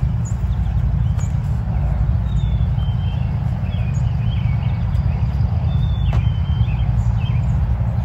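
Black-capped chickadees singing their two-note "cheese-burger" whistle, the second note a little lower, with other short bird chirps around them, heard over a loud, steady low rumble.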